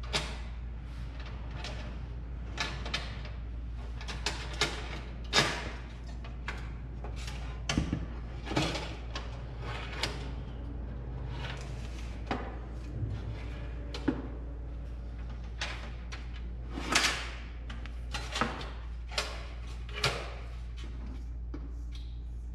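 Irregular knocks and clunks, a dozen or more spread through the stretch, from handling and fitting the metal parts of a Winnerwell Woodlander tent stove.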